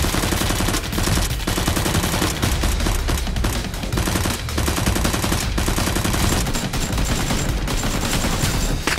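Rapid automatic gunfire, a sound effect dubbed over a Nerf blaster fight, in long bursts with a few short breaks.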